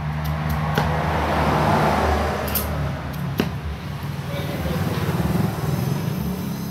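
Gas torch flame hissing as it heats and cuts into a chrome motorcycle muffler shell, swelling louder in the first couple of seconds, with a few sharp clicks of metal. A steady low hum runs underneath.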